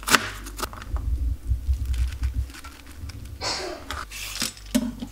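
Knife chopping shredded cabbage on a plastic cutting board in a few scattered knocks, with a brief rustling scrape about three and a half seconds in.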